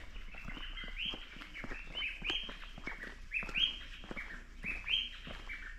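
A dawn chorus of many birds, with several short calls a second overlapping. Each call sweeps up and then falls back.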